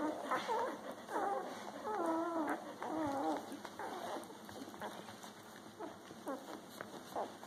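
Newborn puppies squeaking and whimpering while they nurse, a string of short wavering squeals with one longer bending whine about two seconds in, growing fainter and sparser toward the end.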